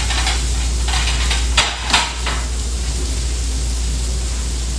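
Diner plates clattering and clinking as they are pulled from a stack and set down on the counter, a cluster of sharp knocks in the first two and a half seconds, the loudest around two seconds in. Under it runs a steady low kitchen hum.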